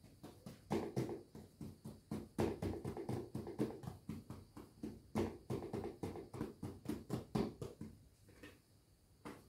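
Bread dough being worked by hand: a quick run of soft pats and thumps, several a second, quietening near the end.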